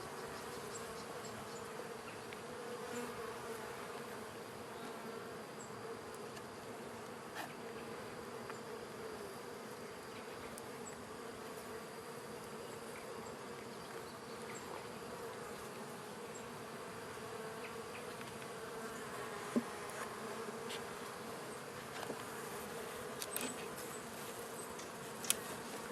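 Honey bees buzzing in large numbers around an open hive, a steady, even hum. A few light clicks come through in the second half.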